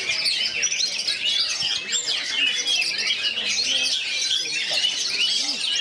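Several oriental magpie-robins (kacer) singing at once in contest song: a dense, unbroken stream of fast chirps, trills and whistled phrases.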